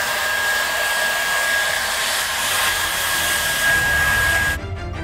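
Handheld hair dryer blowing: a rush of air with a steady high whine from its motor, cut off suddenly near the end.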